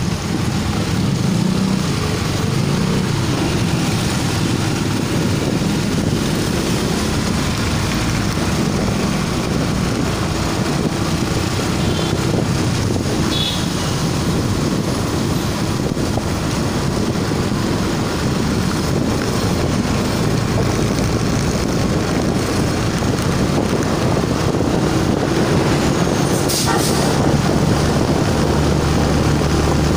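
Motorcycle engine running steadily while riding, under heavy wind and road noise; a steady low engine hum comes through more clearly near the end.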